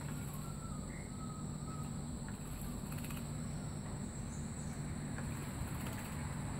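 A steady low outdoor hum, with a few faint short bird chirps in the first two seconds and faint brief rustles around three and six seconds in, which fit the caged magpie robin fluttering in its bath water.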